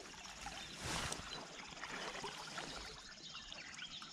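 Faint, steady sound of shallow river water flowing and trickling, swelling slightly about a second in.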